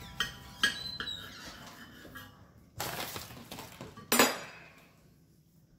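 A kitchen knife cutting through a crispy fried chicken sandwich, clicking and scraping against a ceramic plate, with a loud sharp clink just after four seconds in.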